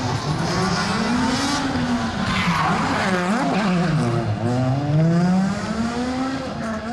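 Rally car engine revving hard, its pitch climbing and dropping repeatedly as the car brakes and accelerates through a chicane. The note dips sharply about three seconds in, then rises again and is loudest about five seconds in.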